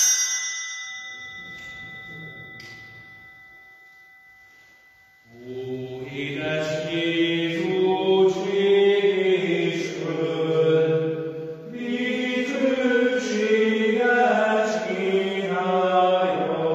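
A small church bell struck once, ringing out and fading over about four seconds as the priests enter. About five seconds in, slow chant-like singing of the entrance hymn begins and carries on.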